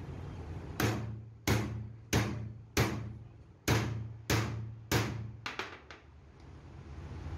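Hammer striking the steel bearing cup of a truck driveshaft's universal joint to drive it into the yoke: seven sharp, ringing metal-on-metal blows about two-thirds of a second apart, then a few lighter quick taps.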